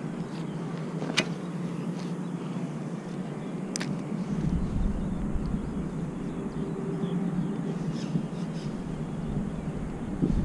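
Outdoor background noise: a steady low hum with two sharp clicks in the first four seconds, and a low rumble that comes in about four seconds in.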